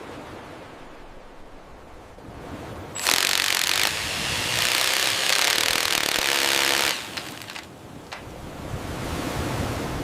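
A power tool runs loudly with a harsh, even hiss. It starts abruptly about three seconds in and cuts off about four seconds later, with quieter work noise before and after.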